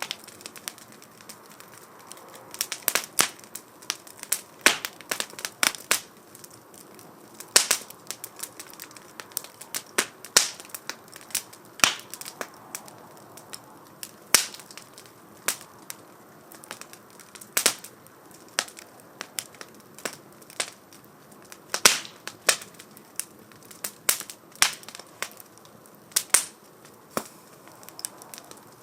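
Firewood burning in a small wood stove, crackling with irregular sharp pops over a faint steady hiss.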